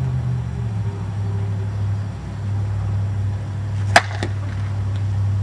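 A slowpitch softball bat hitting a pitched ball: one sharp crack about four seconds in, with a fainter click just after, over a steady low hum.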